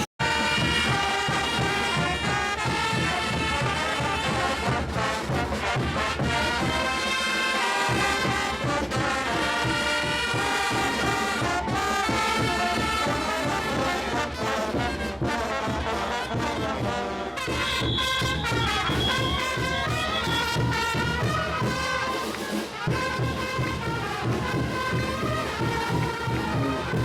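Brass band playing traditional Bolivian parade music, trumpets and trombones over a steady beat; the music changes about two-thirds of the way through.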